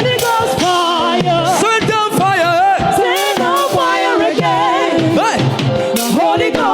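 Live gospel worship music: a vocalist singing with heavy vibrato over a band, steady and loud.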